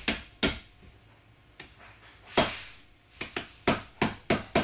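Small hammer striking a 3/16 pin punch to drive a dowel pin out of an air-powered dart projector's barrel. First a few separate knocks, then, near the end, steady quick taps about four a second.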